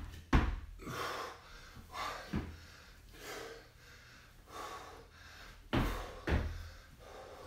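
A man breathing hard from the effort of weighted squats, forceful breaths about once a second. A few dull thumps stand out, the loudest about half a second in and two close together near six seconds.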